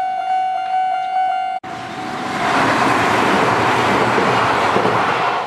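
Japanese level-crossing warning signal ringing its electronic chime in quick repeated strokes, about three a second. About a second and a half in it cuts out abruptly and a Kintetsu electric train's passing rush takes over, swelling loud and holding, with the crossing chime still faintly sounding underneath.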